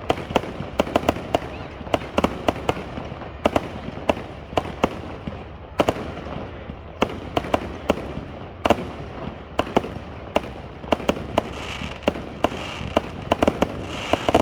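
Fireworks going off in a rapid, irregular string of sharp bangs and pops, several a second, with crackling in between.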